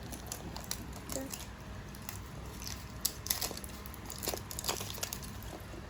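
Scattered crinkles and small clicks of a surprise egg's wrapping being handled and opened by hand.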